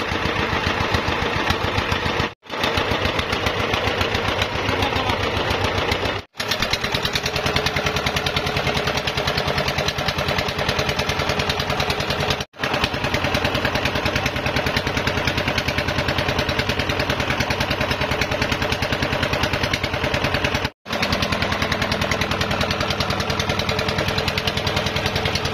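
Small single-cylinder 'dompeng' diesel engine driving a river boat, running steadily with a fast, even chugging; the sound drops out briefly four times.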